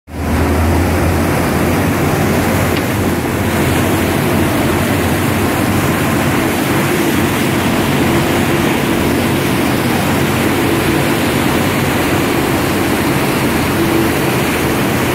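Wake boat's engine running with a steady low drone, mixed with the churning, rushing white water of the boat's wake.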